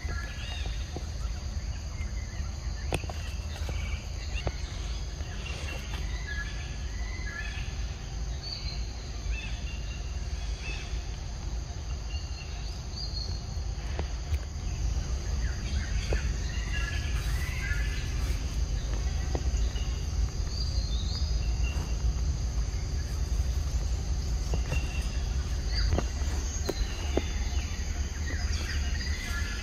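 Forest ambience: birds chirping in short scattered calls over a steady high insect drone, with a constant low rumble underneath.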